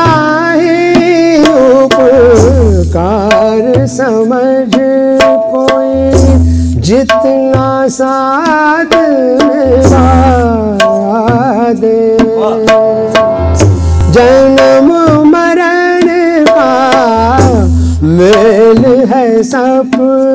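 Male voice singing a Hindi bhajan to harmonium and tabla accompaniment: the harmonium sustains steady chords under the bending vocal line, and the tabla's bass drum gives deep strokes about every four seconds.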